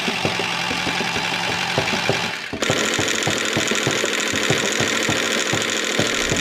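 Small engine of a mini tractor running with a rapid, even knocking beat. The sound dips briefly and changes abruptly about two and a half seconds in, then carries on.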